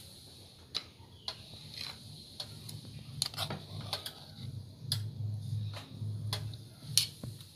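Metal spoons clinking irregularly against each other and the rim of a steel pot as spoonfuls of thick batter are scraped into hot oil, over a faint sizzle of the oil frying.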